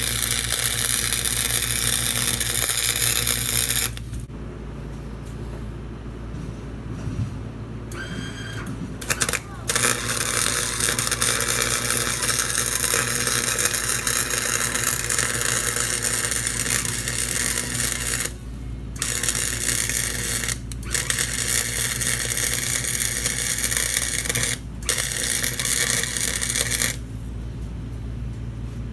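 Arc welding a steel patch onto a lawnmower deck: the steady crackling sizzle of the arc, laid down in several runs. It stops about four seconds in for some five seconds, breaks briefly three more times, and stops near the end, over a low steady hum.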